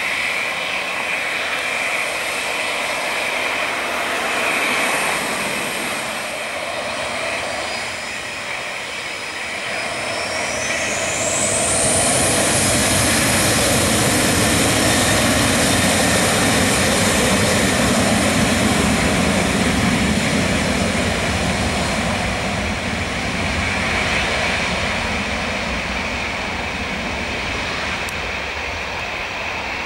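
Boeing 737-800's CFM56-7 jet engines running with a steady whine and rumble. About a third of the way in, the whine rises sharply in pitch as thrust comes up, and a louder low rumble follows for several seconds before easing.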